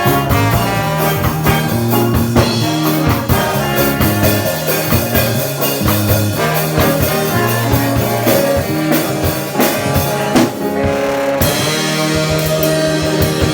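Live band playing a song: drum kit, a bass line and keyboard together at full volume, with a change in the arrangement about eleven seconds in.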